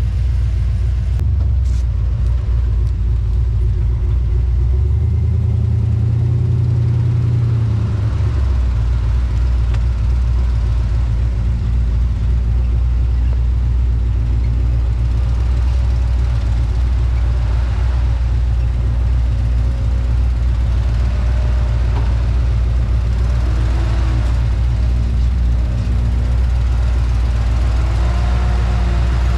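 An off-road 4x4's engine running with a deep, steady rumble. Its note changes briefly between about five and eight seconds in.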